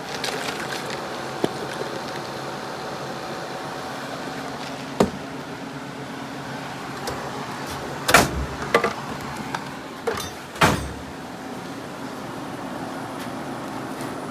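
Late-1960s Sears Coldspot 6,000 BTU window air conditioner running steadily, its fan and compressor humming. A few sharp knocks and clatters from handling come through the middle, the loudest a little after eight seconds in and near eleven seconds.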